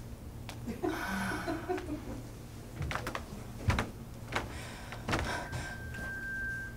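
Scattered knocks and clatters, the sharpest about halfway through, with a brief rustle about a second in and a faint steady high tone in the second half.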